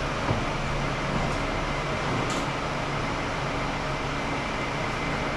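Steady mechanical hum from a running machine, with a couple of light clicks in the first half.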